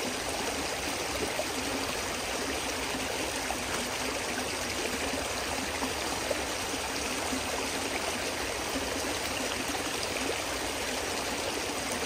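Shallow creek water rushing steadily over rocks and through a sluice box set in the current.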